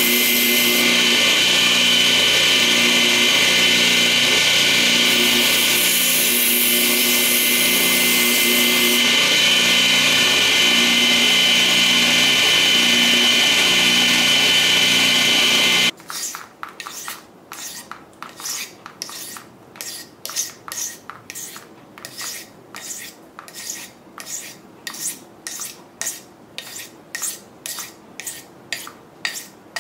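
A power tool runs steadily for about the first half, then stops abruptly. It is followed by a steady rhythm of hand strokes, about one and a half a second, of a metal blade rubbed on an abrasive during reworking of a folding knife.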